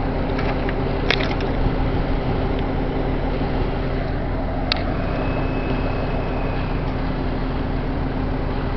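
A mobile home burning: a steady rushing noise of the fire with scattered sharp pops and crackles, the loudest about a second in and another near five seconds, over a steady low hum.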